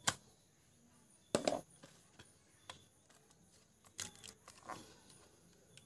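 Banana leaf crackling as it is pressed down over the mouth of a clay pot and tied with thread. There are a few short sharp crackles: one at the start, one about a second and a half in, and two about four seconds in.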